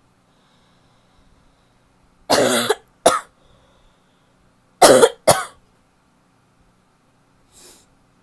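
A woman's barky coughing: two bouts of two coughs each, about two and a half seconds apart, the first cough of each bout the longer. A faint breath follows near the end.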